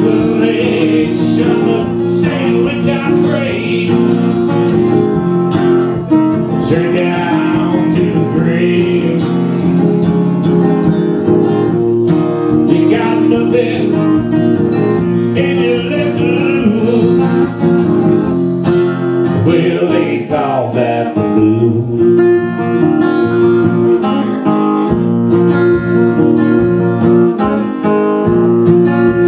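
A man singing with his own strummed acoustic guitar in a live solo performance. The guitar strumming runs on steadily, and the vocal lines come in phrases with short gaps between them.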